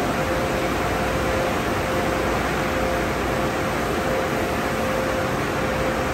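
Car wash tunnel equipment running steadily: an even rush of air and machinery with a faint constant whine, while a foam cloth top brush spins down over a passing vehicle.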